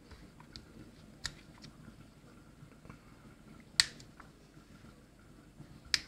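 A small screwdriver prying apart the plastic carbon-brush holder of an Indesit washing-machine motor: faint scrapes and small clicks, with three sharper clicks, the loudest about four seconds in.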